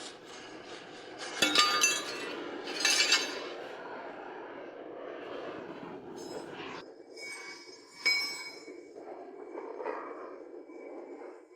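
Steel parts clanking against each other or on metal three times, each strike ringing briefly, over a steady background hum.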